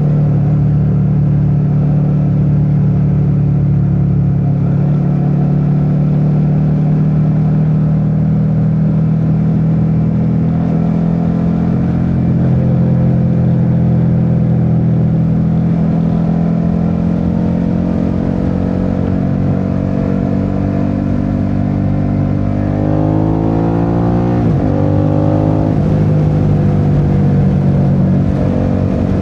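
Suzuki SV650's 645 cc V-twin running at a steady cruise under a riding motorcycle. About three-quarters of the way in, the engine revs rise, drop sharply at a gear change, rise again, then settle back to a steady note.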